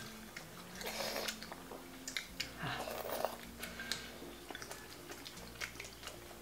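Quiet eating sounds: close chewing and biting into a soft steamed bun, with scattered light clicks of chopsticks against porcelain bowls.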